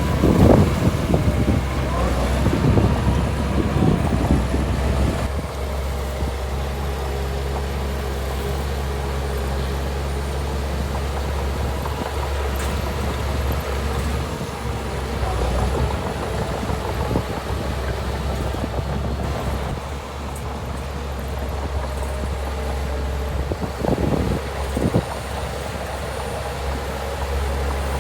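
Heavy diesel earthmoving machinery running steadily with a constant low engine hum. It is louder and busier, with shifting pitch, in the first few seconds and again briefly about 24 seconds in.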